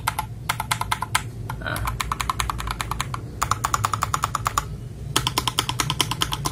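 Fast typing on a mechanical keyboard: runs of rapid keystroke clicks broken by short pauses. The keystrokes have the clear, 'thock' sound the owner describes.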